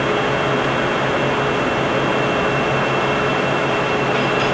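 Poreba TPK80A/3M heavy-duty engine lathe running under power, its spindle and lead screw turning as the carriage is put into threading feed: a steady machine hum with a thin, constant high tone.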